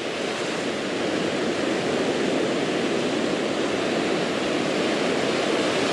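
Ocean surf: whitewater from breaking waves washing up a sandy beach, a steady rushing hiss that swells a little over the first second or two.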